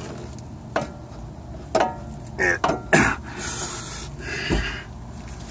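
A person's short grunts and breaths, with a few sharp knocks in between.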